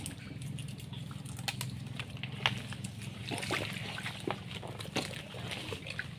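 Wet mudflat noise: scattered sharp clicks and crackles of wet mangrove mud and water over a steady low hum.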